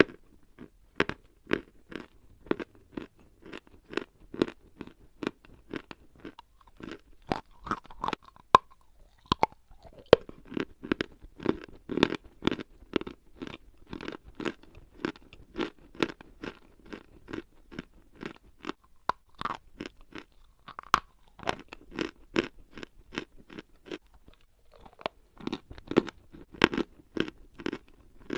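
Dry edible chalk being bitten and chewed close to the microphone: a steady run of sharp, dry crunches, two or three a second, with a couple of brief pauses.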